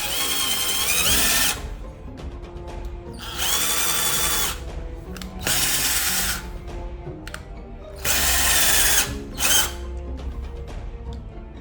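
Electric drill boring through a door, running in several short bursts of about a second each. Each burst has a high whine.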